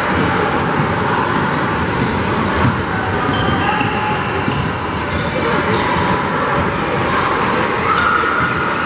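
A basketball dribbled on a gym's hardwood floor, over the steady chatter of a crowd in the bleachers, with a few short high squeaks about halfway through.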